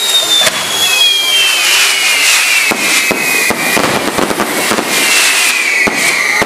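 Castillo firework tower burning: several whistles sliding slowly down in pitch over a steady hiss, joined a little under halfway in by a rapid crackle of small bangs.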